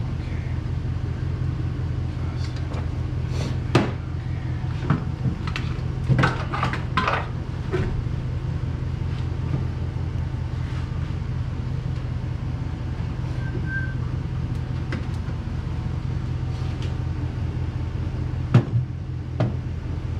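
Scattered metallic clicks and clinks from hands and tools working at the battery in a car's engine bay, over a steady low hum. A cluster of clicks comes a few seconds in, and a couple more near the end.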